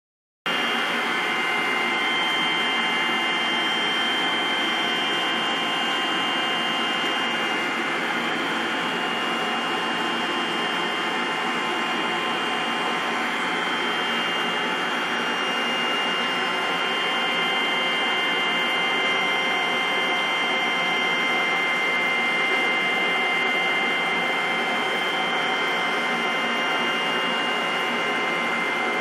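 Steady machine whir and hiss of aquarium pumps and filters, with two thin high-pitched whines held over it; it starts abruptly about half a second in and then runs on without change.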